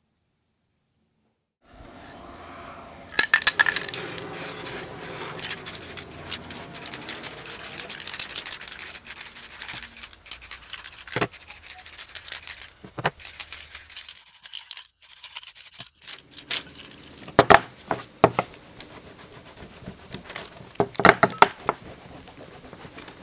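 Cloth rubbing and wiping over painted sheet-metal scale parts, a dense scratchy swishing with scattered sharp clicks. It starts after about two seconds of silence and is busiest in the first half, then thins out.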